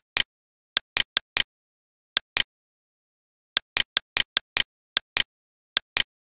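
Computer mouse clicking: sharp dry clicks in short runs, about five a second, with dead silence between the runs.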